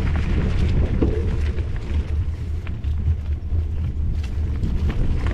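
Mountain bike rolling along a dirt trail, heard from a handlebar-mounted camera: a steady low rumble from tyres, frame and wind on the microphone, with scattered clicks and rattles as the tyres run over dirt and leaf litter.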